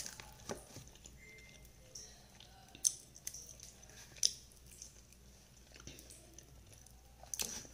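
A person chewing food with several short, sharp wet mouth smacks and clicks.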